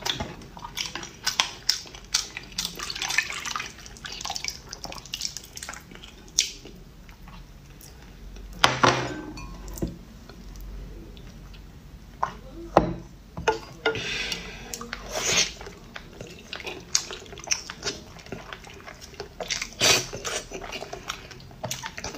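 A spoon and ladle clinking against a bowl while liquid sauce is ladled and dripped over a bowl of boiled eggs. Short clicks and clinks run throughout, with louder pouring and splashing around the middle.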